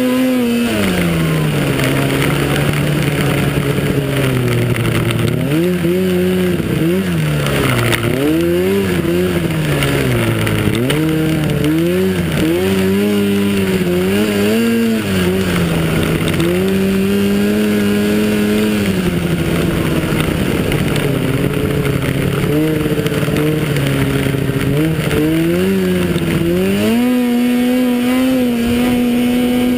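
Snowmobile engine revving up and down over and over as the throttle is opened and eased off along the trail. It runs high near the start and again near the end, with a rushing hiss of wind and snow over it.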